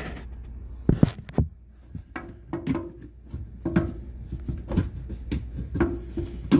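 Irregular knocks, clicks and short rubbing sounds of a sink drain pipe being handled and worked back into the drain opening, the loudest knocks about a second in.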